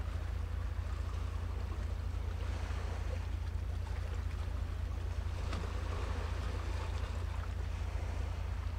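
Seaside ambience: a steady low rumble with a faint wash of sea and waves above it, swelling slightly twice.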